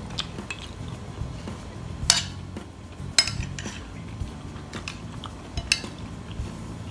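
Metal cutlery clinking and scraping against a ceramic plate of food, with a few sharp clinks, the loudest about two, three and almost six seconds in.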